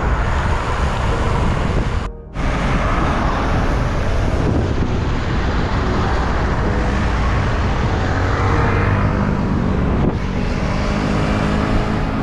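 Road traffic and wind rushing over the microphone of a camera riding along on a bicycle, with a motor vehicle's engine passing in the last few seconds. The sound cuts out briefly about two seconds in.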